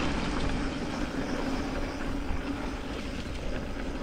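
Steady rushing noise with a constant low drone, easing slightly toward the end: wind on the camera and tyre noise while riding a mountain bike.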